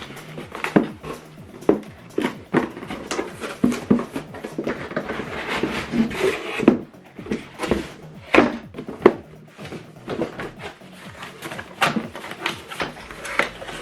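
Cardboard box and packaging being handled during unboxing: irregular knocks and clicks of cardboard, with a spell of paper and plastic rustling about halfway through.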